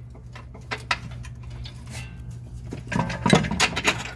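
Metal clinks and clanks of tools and suspension hardware being handled under a car, a few light ticks at first, then a quick cluster of louder knocks about three seconds in, over a steady low hum.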